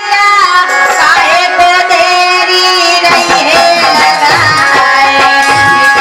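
Indian folk music in the Alha ballad style: a pitched melody line with hand-drum beats that come in about halfway through.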